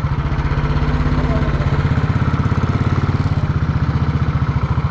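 Motorcycle engine running at a steady speed, a fast, even throb of firing pulses with no change in pitch.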